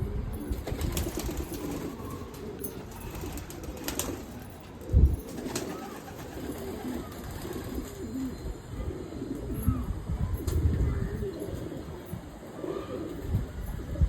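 Pigeons cooing repeatedly in low, soft calls, with a loud low thump about five seconds in and a few sharp clicks.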